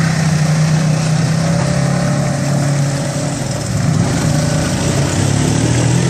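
Polaris RZR side-by-side's engine running steadily as it pushes through a shallow creek, with water splashing around the wheels.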